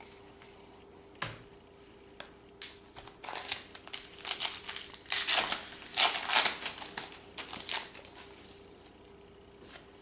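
Trading cards being handled and flipped through: a sharp click about a second in, then several seconds of rustling, crinkling bursts, loudest in the middle.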